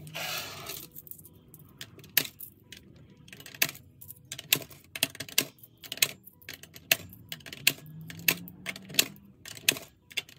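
Coins dropped one at a time through the slot of a digital coin-counting jar, each landing with a sharp clink, about one or two a second. There is a short rustle at the start.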